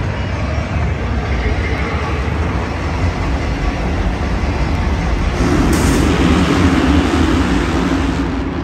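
Steady rumble of a moving vehicle, swelling louder for a couple of seconds after the middle.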